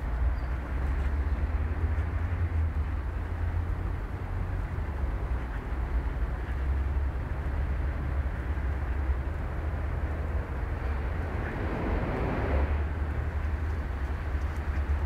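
Outdoor background noise: a steady low rumble with a swell about twelve seconds in.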